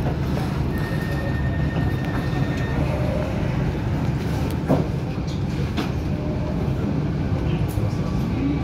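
Inside a GVB Amsterdam Metropolis M5/M6 metro train standing at a station platform: a steady low rumble from the train's running equipment, with a single knock about halfway through. Near the end the traction motors set up a rising whine as the train starts to pull away.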